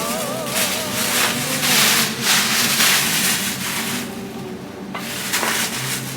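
Plastic grocery bags and packaging rustling and crinkling as groceries are handled, in several swells. Background music plays under it, with a wavering sung melody at the start.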